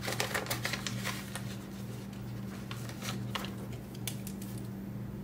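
Paper banknotes and envelopes being handled. There is a flurry of rustles and small clicks in the first second or so, then a few scattered ones, over a steady low hum.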